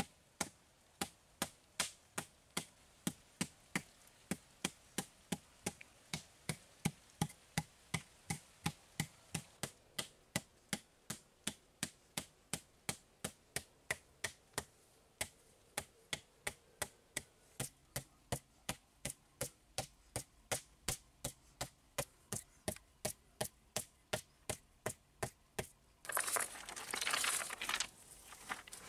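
A hand tool tapping steadily on a cement pond floor, sharp knocks at a little over two a second. Near the end the tapping stops and a brief, louder scraping rustle takes over.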